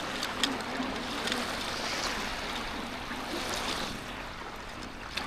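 Steady rushing water, with a few faint clicks.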